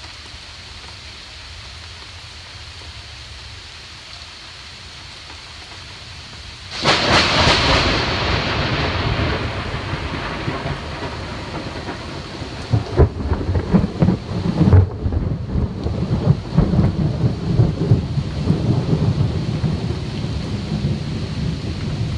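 Steady heavy rain, then about seven seconds in a sudden loud thunderclap that rolls on as rumbling thunder in uneven swells over the rain.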